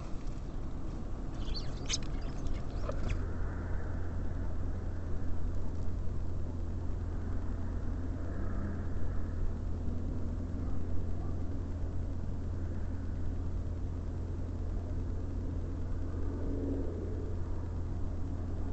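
Steady low background rumble, with a few faint clicks in the first few seconds.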